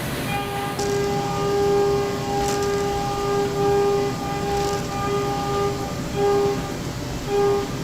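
End mill on a 5-axis CNC machine cutting aluminium at high speed: a steady, high-pitched cutting whine at a fixed pitch that breaks off and returns over and over as the tool enters and leaves the cut, over a constant machine hiss.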